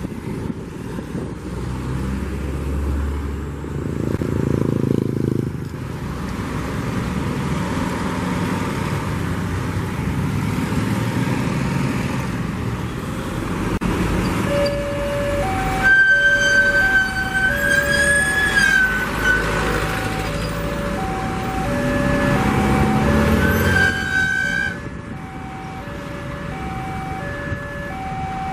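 Road traffic passing a level crossing: bus and motorcycle engines and tyre noise. About halfway in, the crossing's electronic warning alarm starts, a steady two-tone signal alternating low and high about once a second, as the barrier arms come down. A higher whistle-like tone sounds over it for a few seconds, rising and falling, and again briefly near the end.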